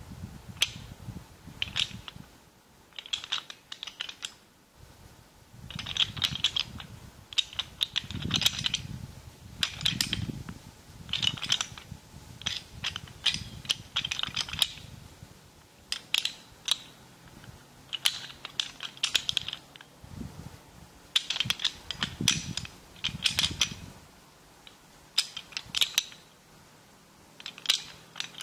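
Rapid bursts of small clicks and rattles, repeating every second or two, from something being handled in the hands close to the microphone, with a few dull bumps in between.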